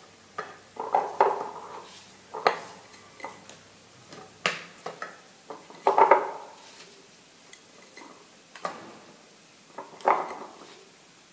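Scattered knocks and clinks of a glass jar being handled as salted lemon slices are packed into it by hand, with a louder knock or handling noise every second or two.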